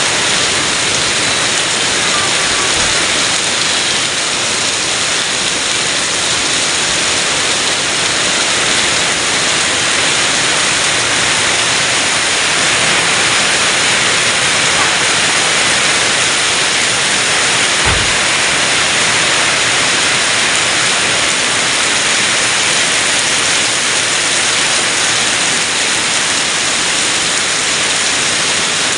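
Heavy rain falling in a steady downpour, with a brief low thud about two-thirds of the way through.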